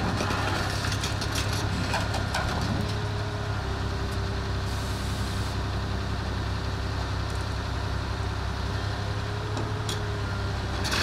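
Heavy diesel machinery running steadily: a Komatsu hydraulic excavator's engine working as it holds and swings a slung tank, with a truck engine idling. A few light clicks and knocks near the start and again near the end.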